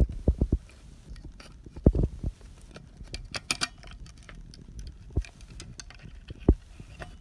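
Handling noise of a small plastic radio and its circuit board: irregular light clicks and taps, a quick flurry of clicks about three seconds in, and a few low knocks.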